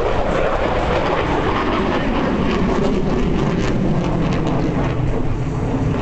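F-16 fighter jet's engine noise during a display pass: a loud, steady rumble with a crackle through the middle.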